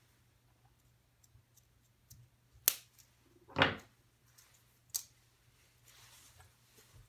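Small parts and tools handled on a wooden workbench: a sharp click about two and a half seconds in, a louder, duller knock a second later, and another sharp click near the five-second mark, over a faint steady hum.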